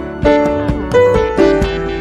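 Background instrumental music: a melody of struck, sustained notes, a new note about every half second.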